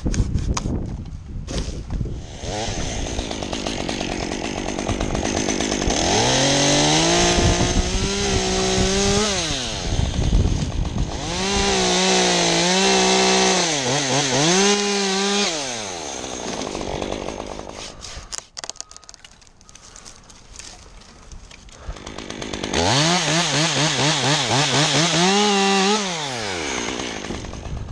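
Chainsaw cutting an ash tree: it revs up to full throttle three times for a few seconds each and drops back to idle between. During the second cut the pitch dips and recovers.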